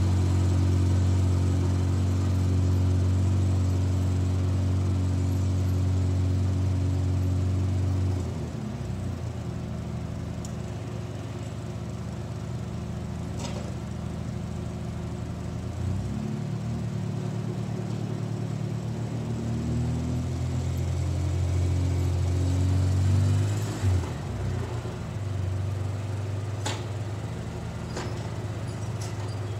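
2004 Polaris Sportsman 600 ATV engine running steadily close by, then dropping off and shifting in pitch about eight seconds in as the quad drives away with its plow, and growing louder again as it comes back toward the end.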